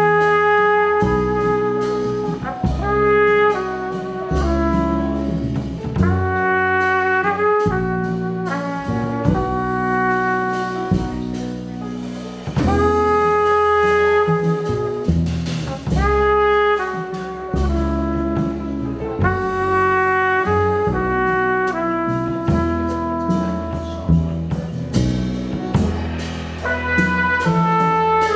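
Small jazz band playing: a trumpet carries the melody in long held notes over plucked upright bass, piano and drums with cymbals.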